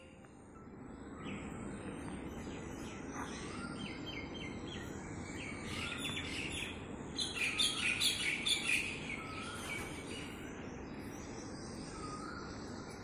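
Common mynah calling: a varied run of short repeated chattering notes and brief upturned whistles, densest and loudest about seven to nine seconds in, over steady background noise.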